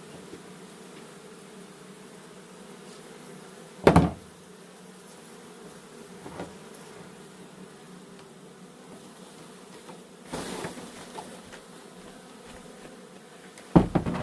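Honey bees buzzing in a steady hum, with two loud knocks, one about four seconds in and one near the end, and a brief rush of noise around ten seconds in.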